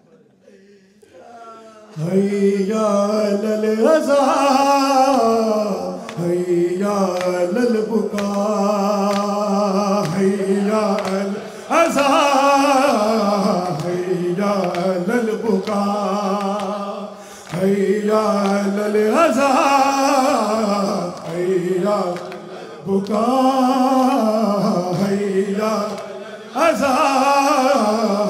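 A man chanting an Urdu noha, a Shia lament, into a microphone without instruments. It goes in long, held phrases with short breaks between them, starting about two seconds in.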